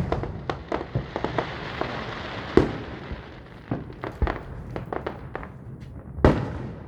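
Fireworks going off: a continual run of pops and crackles, with two louder booms, one about two and a half seconds in and one near the end.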